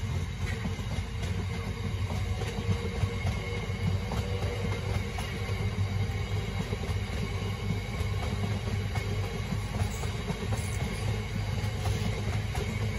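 Freight train of container flat wagons, mostly empty, rolling past: a steady rumble of steel wheels on the rails with light, frequent clicking of the wheels over the track.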